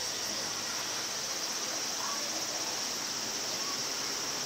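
A chorus of cicadas droning steadily at a high pitch, with a fast even pulsing.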